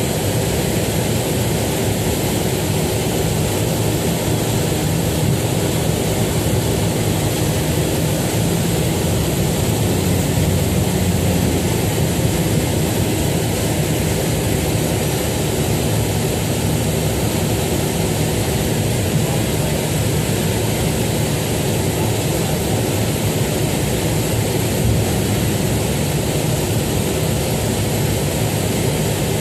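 Small propeller aircraft's engine running steadily at an even, unchanging level.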